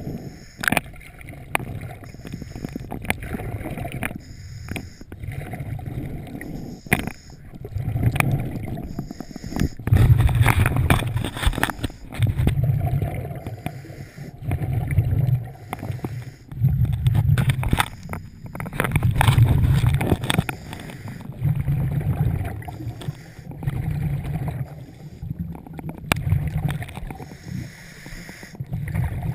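Scuba regulator breathing underwater, heard through a waterproof camera housing: hissing inhalations alternating with rumbling bursts of exhaled bubbles, repeating roughly every two seconds.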